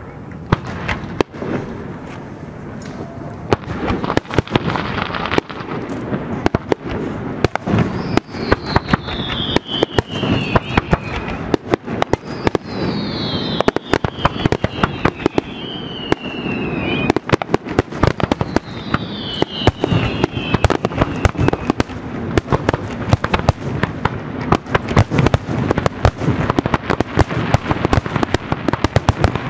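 Aerial fireworks going off in a rapid barrage of bangs and crackling, with several falling whistles in the middle.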